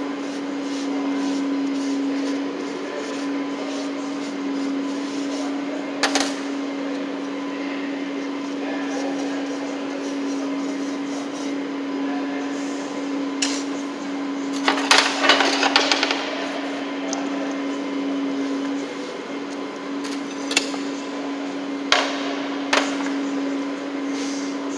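A steady machine hum, with scattered knocks and a short clatter about fifteen seconds in as the concrete-testing tools (metal measure, scoop and plastic buckets) are handled and wetted.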